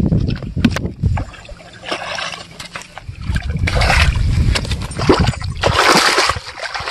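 A hooked fish thrashing and splashing in the shallows as it is dragged onto the bank, in about three bursts of splashing a second or so apart, with a low rumble underneath.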